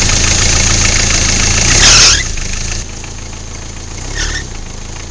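1982 Isuzu I-Mark diesel engine running with its worn fan belt squealing. There is a loud surge about two seconds in, after which the engine runs quieter and the squeal fades.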